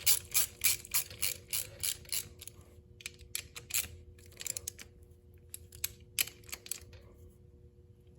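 Socket ratchet clicking as the oil filter cover bolts on a Lifan KPR 200 engine are run down, about three clicks a second at first. After about two and a half seconds the clicks slow and turn into scattered, fainter clicks.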